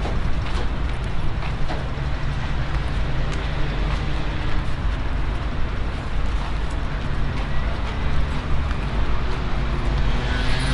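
Road traffic noise: a steady low engine rumble under a dense hiss of passing vehicles.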